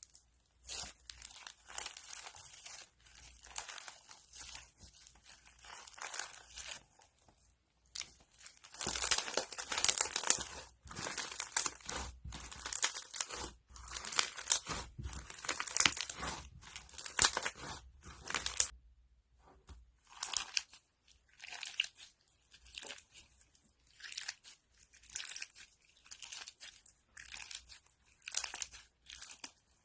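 Crunchy slime being squeezed and pressed by hand, giving a dense crackling and popping. The crackling grows louder and runs almost without a break through the middle, stops briefly, then comes back in short separate squeezes about once a second.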